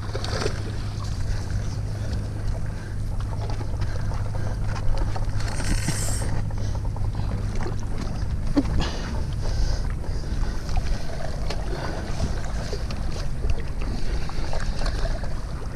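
Wind rumbling on the microphone over the sea washing against a rocky shore, with a brief louder rush about six seconds in.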